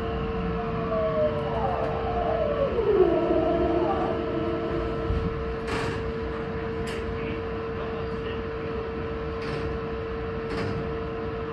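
Meitetsu 2200 series electric train's inverter whine falling in pitch as it brakes at low speed, over a steady tone and rumble. A few short wheel clacks on the track come in the second half.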